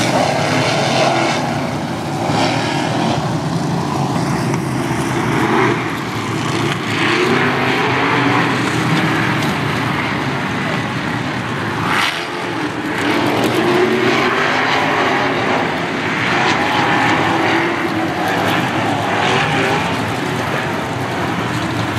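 A field of USAC sprint cars' engines running hard around the dirt oval, their pitch rising and falling in repeated sweeps as the cars pass.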